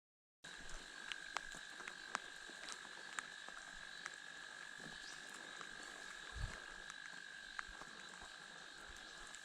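A steady, high-pitched chorus of calling frogs, with scattered light ticks of dripping water and one low thump about six seconds in.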